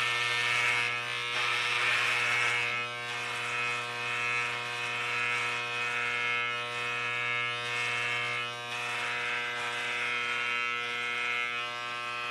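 Braun Series 3 electric shaver running with a steady buzz as it is passed over a closely clipped scalp, taking off the leftover stubble. Its level rises and falls a little as it moves over the head.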